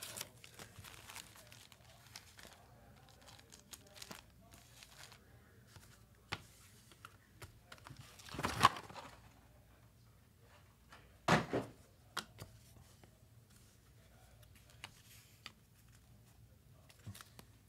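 Trading card packaging being opened and handled: quiet crinkling and tearing of wrapper and cardboard with scattered light clicks, and two louder thumps about eight and eleven seconds in.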